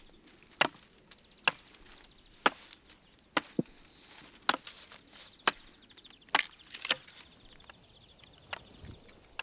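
Axe chopping wood, sharp single strikes about once a second.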